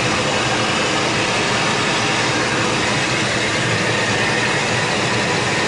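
A 2004 Ford F-150 idling steadily in drive, heard as an even, unchanging rush of engine and drivetrain noise.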